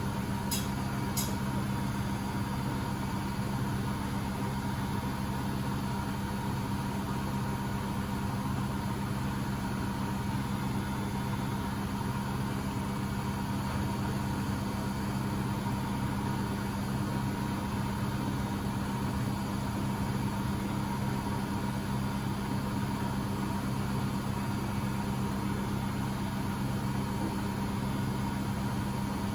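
Beko WMB71642W washing machine spinning at 1000 rpm in its first intermediate spin: a steady motor and drum hum that holds one pitch throughout.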